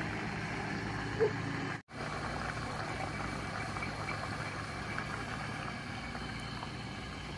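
Hot oil sizzling and bubbling around a whole chicken deep-frying in a pan, over a steady low hum. The sound breaks off for an instant about two seconds in.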